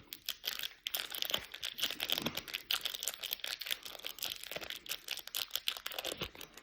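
Foil trading-card pack wrappers crinkling as they are handled and opened, a continuous run of crackles and small clicks.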